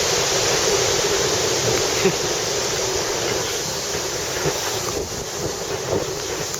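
Storm waves surging against the seafront with strong wind buffeting the microphone: a steady rush of noise that eases slightly toward the end.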